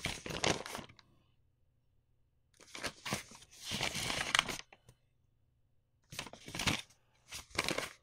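A sheet of paper being handled, folded and unfolded, rustling and crinkling in three separate bouts with short pauses between them.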